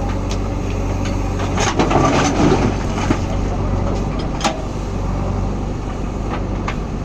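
Diesel engine of a JCB backhoe loader running steadily, with a burst of clattering and knocking about two seconds in, as stone is handled, and a single sharp knock a little later.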